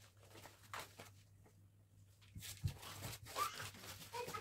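Faint handling noises at a table: a light tap, then from about halfway a low knock and some shuffling as things are moved and picked up.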